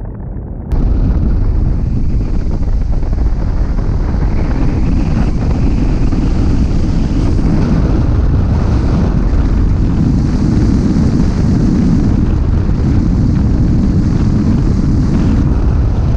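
Wind rushing hard over the microphone of a camera on a hang glider in flight: a loud, steady rush of air that comes in suddenly about a second in.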